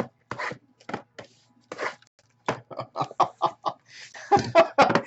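A man laughing in short rhythmic bursts of about five a second, louder near the end.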